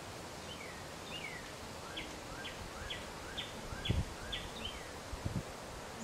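A songbird sings a series of about eight short downslurred notes, roughly two a second, over a steady hiss of wind in the leaves. A few soft low thumps come near the end, the loudest about four seconds in.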